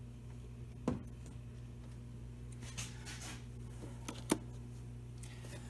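A few short, light clicks and taps from hand work on the plastic air box and its screws with a small socket tool, over a steady low hum.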